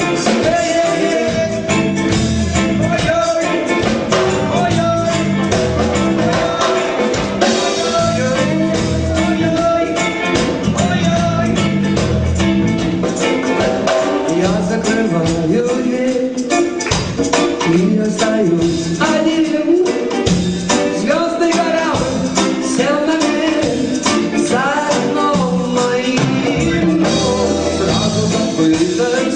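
Live band playing the instrumental intro of a rock-pop song, with a steady drum beat and bass line.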